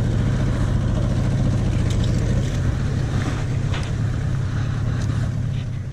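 A small boat's motor running steadily, a low even hum that eases slightly near the end.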